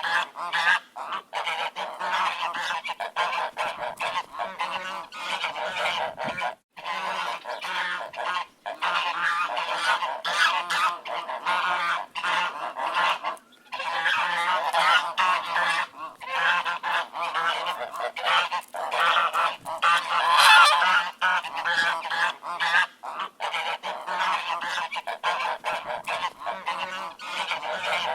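A flock of ducks quacking, many loud calls overlapping in a dense, continuous chorus with a few brief pauses.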